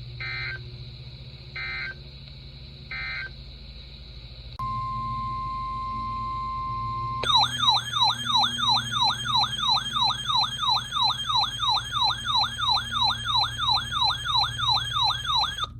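NOAA Weather Radio SAME alert signalling: three short screeching data bursts about a second and a half apart, then a steady 1050 Hz warning alarm tone for about two and a half seconds, then a loud siren-like alarm tone that sweeps up in pitch about three times a second for about eight seconds.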